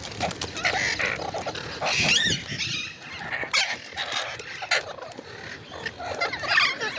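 Ringneck parrot chattering: a rapid run of short squawks and warbling, pitch-bending calls, with no clear pause.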